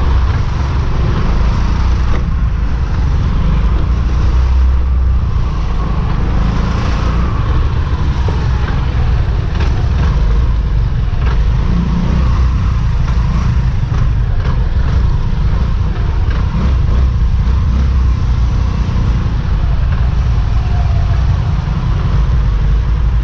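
Road traffic noise: a steady low rumble of car engines and tyres heard from a vehicle moving slowly between lanes of cars, with a faint engine whine that rises and falls in the first few seconds.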